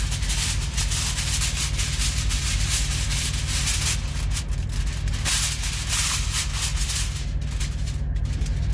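Wrapping material (plastic packaging or foil) being crinkled and rustled by hand, a dense continuous crackle, over a steady low hum.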